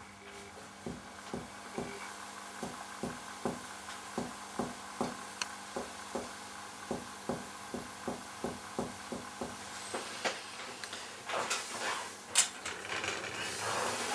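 Finger-on-finger chest percussion, tapping about two to three times a second for some nine seconds, working down the right midclavicular line toward the dulled note where lung tissue overlies the liver, which marks the height of the diaphragm. Near the end, rustling and one sharp click.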